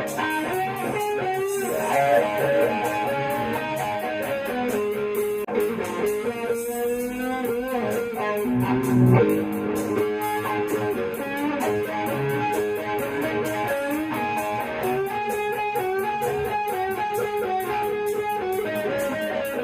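Electric guitar, a Gibson Les Paul, played through a Dunlop Cry Baby 95Q wah pedal into a Marshall Origin 20 amp. The player plays riffs and lead lines while the wah sweeps the tone up and down.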